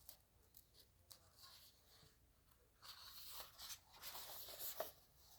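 Faint rustling of paper, like a book's pages being handled, with a few light clicks; it comes in mostly in the second half, against near silence.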